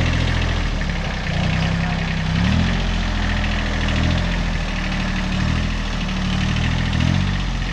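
Kubota compact tractor's diesel engine running as it pulls a small trailer. The engine note dips and rises again several times as the speed changes.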